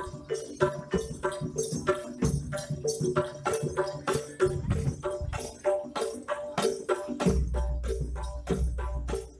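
Live Javanese gamelan music of the kind that accompanies jaranan horse-dance performances: quick, evenly paced percussion strikes with a jingling, metallic edge over ringing pitched gong-chime tones. A deep low tone sets in about seven seconds in.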